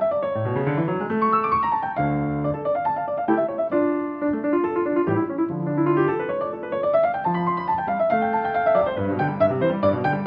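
Piano music with quick runs of notes rising and falling.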